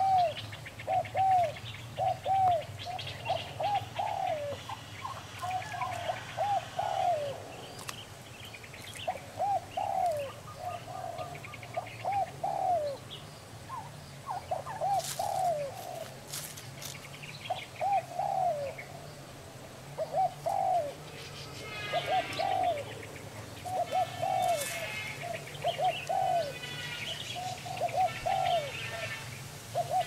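Caged decoy dove cooing over and over in short arched notes, often in little runs, about once a second. Small birds chirp higher up, mostly in the second half.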